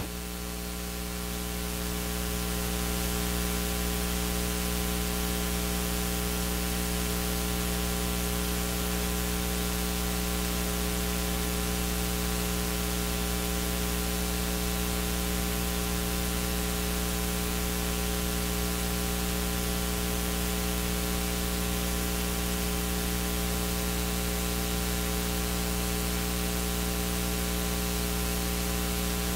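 Steady electrical mains hum with a stack of even overtones under a constant hiss. It swells slightly over the first couple of seconds, then holds unchanged.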